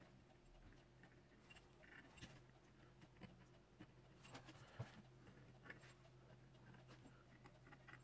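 Near silence over a low steady hum, with faint scattered ticks and scratches of a pencil drawing on the coated steel blade, a few slightly louder ones about halfway through.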